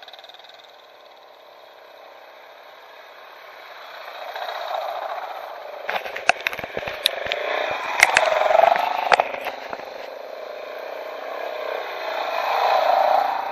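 Motorcycles approaching and passing on the road, growing louder from about a third of the way in and swelling again near the end. A burst of sharp clicks and knocks in the middle comes from the camera's bike being handled.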